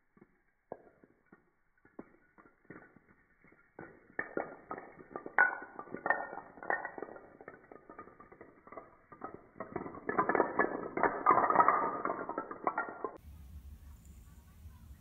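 A chain of wooden domino blocks toppling on a tile floor. Scattered clicks build into a rapid, dense clatter that is loudest about ten to twelve seconds in, then stops suddenly near the end, leaving a low hum.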